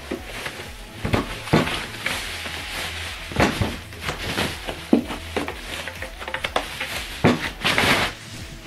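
Foam wrapping sheet and plastic bag rustling and crinkling as a boxed subwoofer is unwrapped by hand. Several sharp knocks come from the cabinet being handled.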